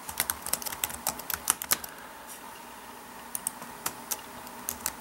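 Typing on a computer keyboard: a quick run of key clicks for about two seconds, a short pause, then more keystrokes near the end.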